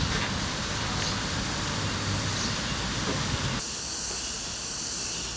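Steady outdoor background noise, like wind and distant rumble. About three and a half seconds in it changes abruptly to a quieter hiss with a steady high-pitched band.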